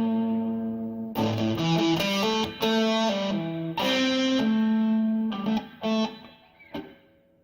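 Electric guitar played through a booster-overdrive pedal, recorded on a cell phone. A held chord rings out, several more chords and notes are struck and sustained, and a few short stabs come near the end before it dies away.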